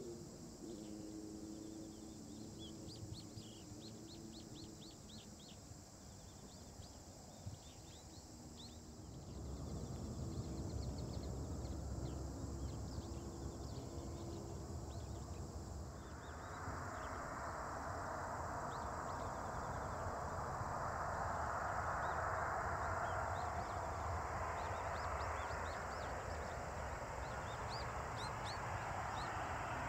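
Faint jet engine noise from Boeing 737-800s with CFM56 turbofans: first a fading hum from one climbing away, then a broad rushing sound that builds from about halfway through as another comes in on final approach. High-pitched chirping runs underneath, most of it in the first half.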